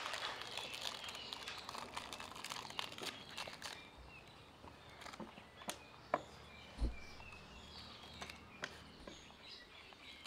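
A plastic snack wrapper crinkling and rustling as it is handled, busiest in the first few seconds, then scattered light clicks and a soft thump about seven seconds in. Faint bird chirps in the background.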